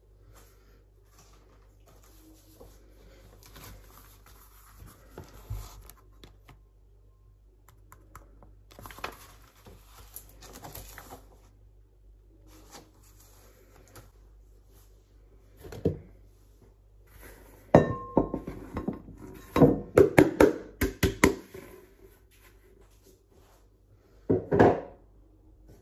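Kitchen handling sounds: paper pages of a recipe book rustling as they are turned, then a quick run of clinks and knocks of dishes and utensils being handled on a worktop, one with a brief ring, and a single dull thump near the end.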